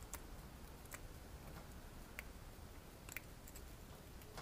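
Faint, irregular sharp clicks and scratches of a small metal tool picking and scraping rust off a badly rusted carburetor main jet.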